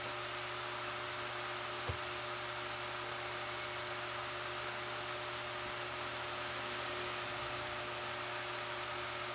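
Steady electrical hum over an even background hiss, with one faint click about two seconds in.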